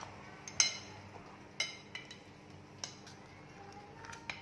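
Metal knife blade clinking against a glass baking dish while cutting through a baked pizza base: several sharp, ringing clinks about a second apart.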